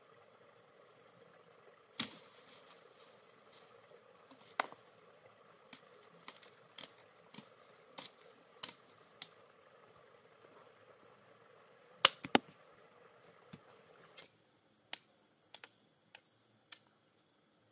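Irregular sharp strikes of a machete chopping at branches and leafy stems, the loudest a close pair about twelve seconds in, over a steady high buzzing of insects.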